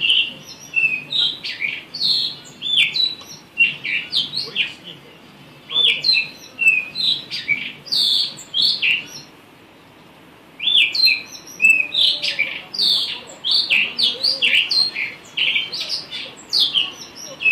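Blue rock thrush singing: loud runs of quick, sweeping whistled notes, in phrases broken by short pauses about five and ten seconds in.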